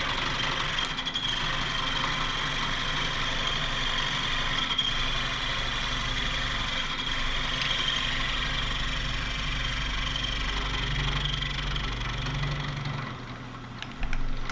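Milling machine's brand-new 5/8-inch end mill cutting a wrench flat across a 4140 steel stud: a steady cutting sound with a high ringing tone over the spindle's hum. The cut ends about a second before the end, the machine still running, then a single click.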